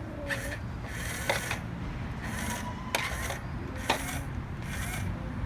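Plastic toy truck and crane being handled: a string of short scraping rasps, with two sharp clicks about a second apart in the middle.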